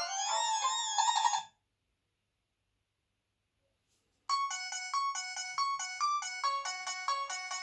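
Ringtones played on an HTC Advantage X7500: a melody with gliding pitch cuts off about a second and a half in, and after a pause of near silence a second ringtone starts, a fast run of short repeated chiming notes.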